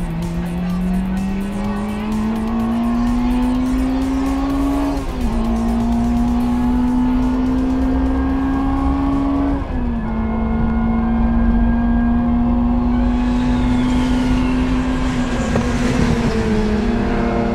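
Honda Integra DC5 race car's 2.0-litre four-cylinder engine at full throttle from inside the cabin: the revs climb steadily, drop sharply at upshifts about five and ten seconds in, then hold high. Near the end a rushing swell of sound comes in as the car passes by.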